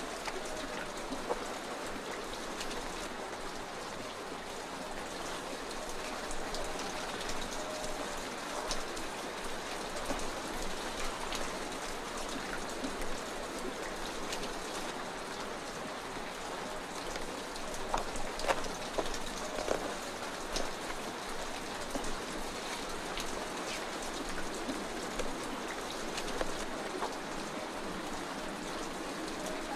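A steady, even hiss like falling rain, with a few faint scattered clicks and knocks.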